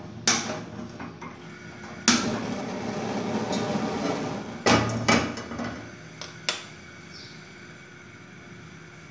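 Gas stove burner being lit with a handheld spark lighter: a sharp click, then about two seconds in the gas catches with a sudden rush of noise that lasts a couple of seconds. A few sharp metal knocks follow, then the burner settles to a faint steady hiss.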